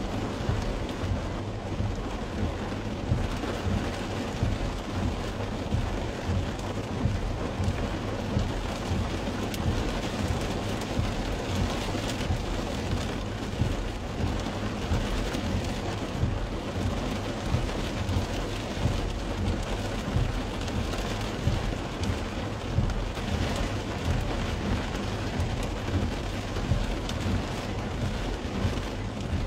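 Rain falling on a car's roof and windscreen, heard from inside the cabin as a steady patter over a continuous low rumble.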